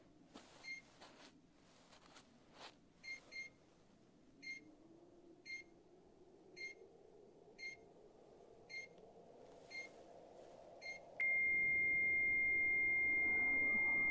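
Handheld electronic scanner beeping with a short high tone about once a second, then switching about eleven seconds in to one continuous steady tone. Faint rustling clicks in the first few seconds, and a low drone underneath.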